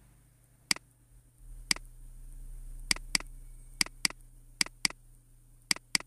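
Computer mouse clicking: two single clicks, then four quick double-clicks, sharp and evenly paired, as folders and then a file are opened in a file dialog.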